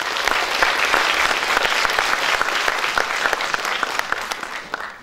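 Audience applauding: dense clapping that fades away near the end.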